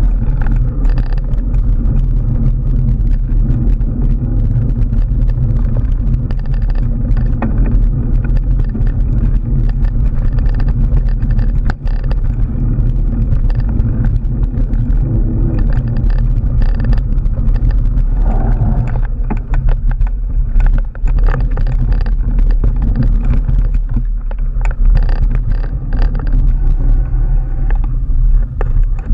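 Mountain bike riding on a rough dirt trail heard through the rider's mounted camera: a steady low rumble of wind and tyre vibration, with frequent small knocks and rattles over the bumpy ground.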